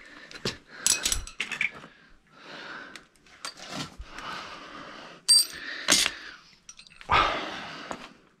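Metal hand tools clinking and rattling as they are handled and rummaged through in a tool bag, with two sharp ringing clinks around the middle and rustling in between.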